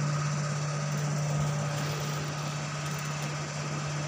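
A steady low machine hum with an even hiss over it.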